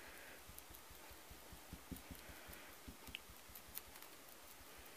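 Near silence with faint soft scraping and light taps as tacky glue is spread over a wooden phonograph grille.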